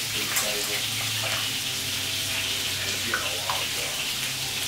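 Water poured from a cup splashing into a stainless steel dog bowl, while a poodle puppy eats dry kibble from the steel bowl beside it with small crunches and clinks.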